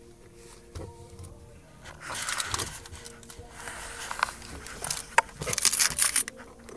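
Hands working in a car's center console: plastic clicks, scrapes and rattles as trim is handled and wiring connectors are unplugged, busiest near the end. Faint music plays underneath, most noticeable at the start.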